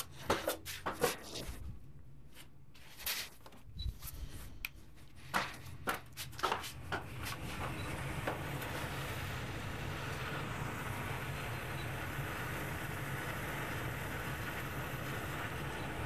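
Clicks and knocks of the combustion analyzer and printer being handled, then from about halfway a steady running noise with a low hum from the gas furnace under test.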